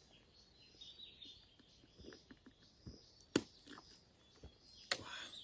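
Faint forest quiet with small birds chirping, and a few sharp clicks, the loudest about three and a half seconds in, as a plastic juice bottle is handled and drunk from.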